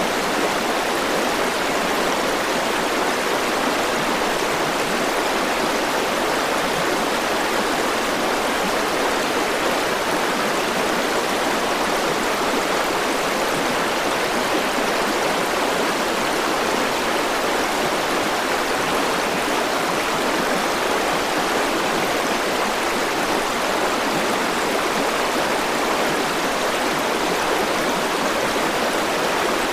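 River water rushing steadily over rocks, a full, even splashing that never lets up.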